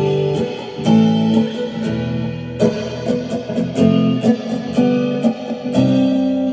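Guitar improvising: a run of picked notes and chords, each ringing on before the next.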